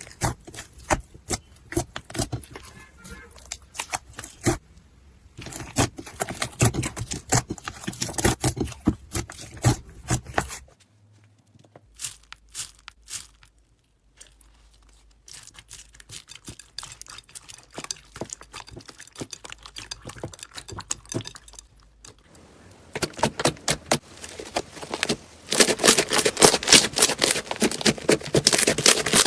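Slime being squeezed, poked and stretched by hand, giving dense runs of small popping and crackling clicks across several short clips. Much quieter for a few seconds around the middle; densest and loudest near the end.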